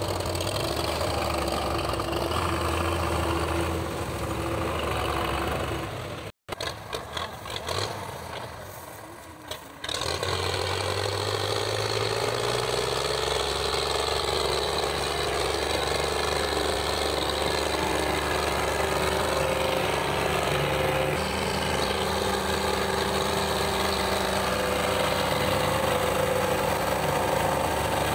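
Belarus tractor diesel engines running. After a short quieter stretch about a third of the way in, one engine climbs in revs and then holds steady under heavy load while pulling a trailer piled high with sugarcane.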